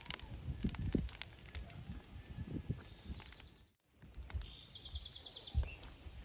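Outdoor ambience: wind rumbling on the microphone with scattered clicks, and birds chirping high. After a brief drop-out about four seconds in comes a quick run of chirps.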